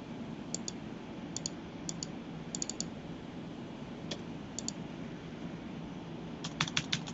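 Computer mouse and keyboard clicks, scattered and mostly in quick pairs, with a burst of three about two and a half seconds in and a quicker run of clicks near the end, over a faint steady low hum.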